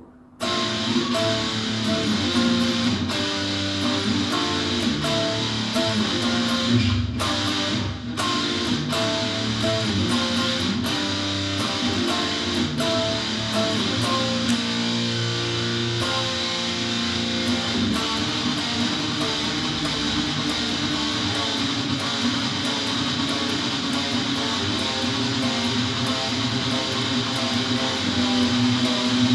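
Heavy guitar-driven rock song, electric guitar over drum hits, starting abruptly about half a second in.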